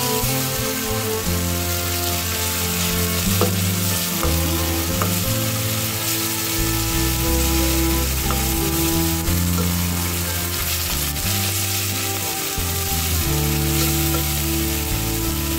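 Tomato paste frying and sizzling in hot oil in an aluminium pot, stirred and pushed around with a spatula against the pot's base.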